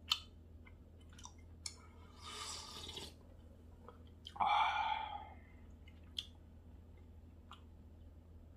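Eating spicy whelk soup with a metal spoon: the spoon clicks sharply against the ceramic bowl at the start and again later, with slurping of broth and chewing. The loudest noise is a short breathy burst about halfway through.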